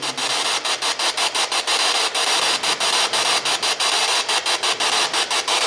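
P-SB7 spirit box sweeping the radio band: loud static chopped about seven times a second as it steps rapidly from station to station.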